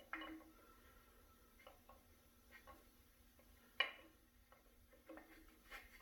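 Faint clicks and light metal taps as an engine main bearing cap is set into place on the block, with one sharper click about four seconds in.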